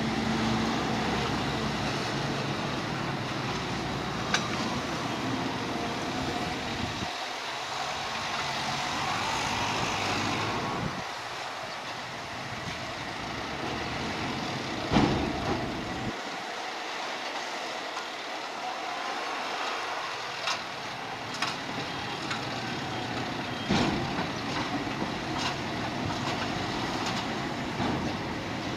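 Cargo-handling machinery running, with a low engine drone that drops away about seven seconds in, returns briefly and drops again. Several sharp metallic clanks and knocks come through it, the loudest about halfway through.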